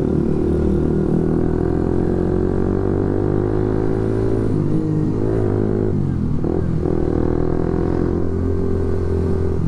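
Suzuki GSX-S150's single-cylinder engine running loud through an aftermarket SARP exhaust while riding, holding a steady note with a brief change in engine speed around the middle. The rider finds the exhaust too loud.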